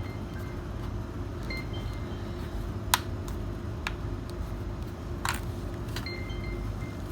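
Back cover of a Samsung Galaxy Tab Pro tablet being pressed shut, its clips snapping into place in a few sharp clicks, the loudest about three seconds in, over a steady low hum.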